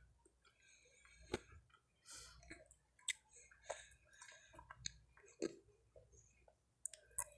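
Faint close-up mouth sounds of eating and drinking: chewing cake and sipping milky coffee from a mug, with several small sharp clicks scattered through.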